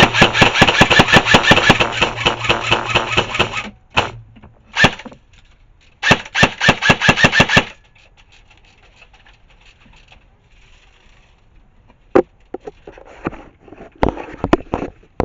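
Airsoft electric rifle firing full-auto: a long burst of rapid shots that stops about three and a half seconds in, two short bursts, then another burst of about a second and a half. After that, only a few faint clicks and knocks.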